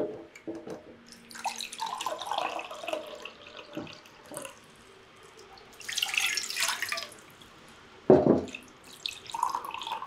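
Water poured from a kettle into a glass measuring cup, then the cup emptied into a stainless steel pan with a rushing splash about six seconds in. A sharp knock comes a little after eight seconds, and pouring into the cup starts again near the end.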